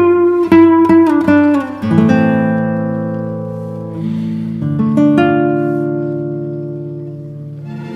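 Background music on acoustic guitar: a quick run of plucked notes, then chords left to ring out and slowly fade, with a fresh chord about five seconds in.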